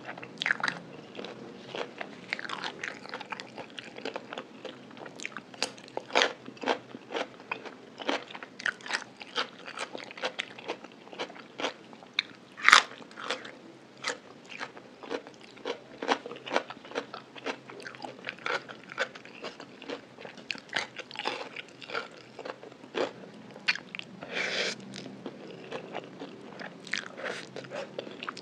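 Close-miked chewing of crispy fried food, a run of crisp crunches with one sharp, louder crunch about halfway through.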